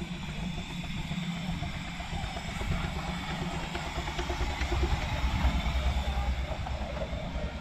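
Miniature railway locomotive running past on its track: a low mechanical rumble that swells as it passes close, loudest about five to six seconds in.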